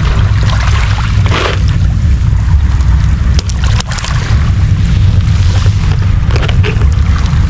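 Wind buffeting the microphone with a heavy, steady low rumble, over waves washing on a pebble shore. A few short clicks and scrapes of a knife cutting small fish on a plastic tray come through now and then.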